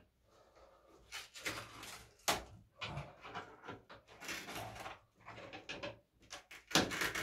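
Plumbing fitting being tightened into a tiled wall with a wrench: irregular scraping and creaking strokes with short pauses, and a sharper crack about two seconds in, as the tile's glaze flakes around the fitting.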